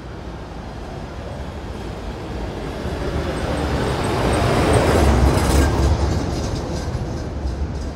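A motor vehicle passing close by on the street, its engine and tyre rumble growing louder to a peak about five seconds in, then fading as it moves away.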